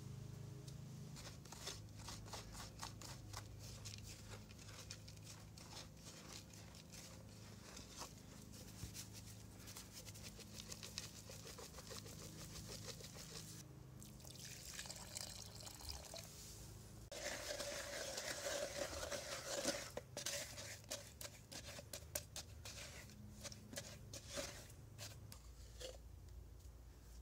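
Hands working a gritty lime-mortar mix in a fired clay pot, a run of small crunching, scraping clicks. About halfway through, water is poured from a clay pot into the mix, a splashing pour that is the loudest part.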